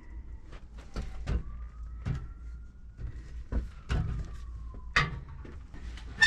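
Insulation batt being handled and pushed into a stud-wall cavity: irregular bumps, taps and rustles, with a sharp knock near the end.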